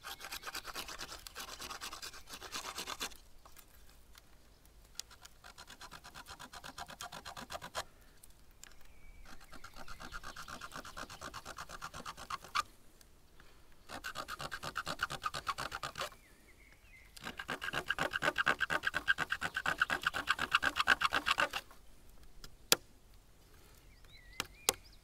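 A sharp stone flake sawing back and forth across a thin wooden stick, cutting the end of a hand-drill fire spindle square. It comes in several bouts of rapid scraping strokes with short pauses between, the longest and loudest bout in the second half.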